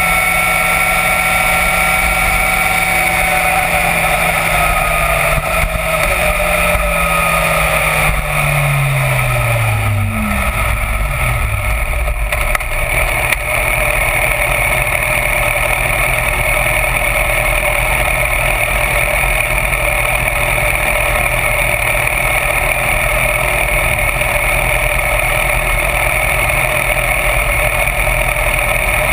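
Motorcycle riding along, its engine note falling steadily in pitch over the first ten seconds, then steady wind rush and road noise on the bike-mounted microphone drowning out the engine.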